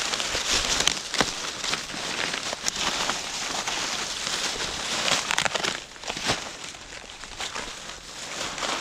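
Footsteps crunching through dry corn leaves and stalks, an irregular crackling and rustling that gets softer after about six seconds.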